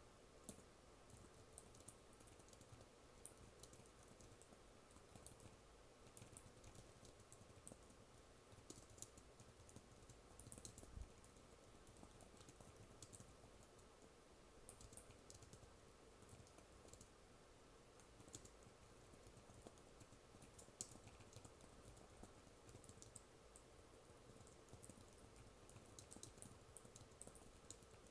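Quiet typing on a computer keyboard: soft, irregular key clicks in short runs.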